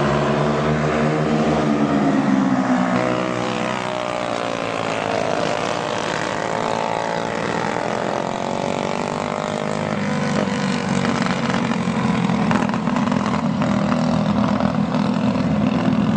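Several Briggs & Stratton Animal four-stroke single-cylinder go-kart engines racing together, their overlapping notes rising and falling in pitch as the karts speed up and slow down.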